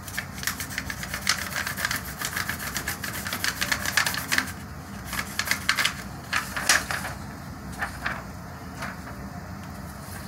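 Quick small clicks and taps from hands handling paper and craft supplies on a desk, densest in the first half, then in scattered bursts that die away about two-thirds of the way through.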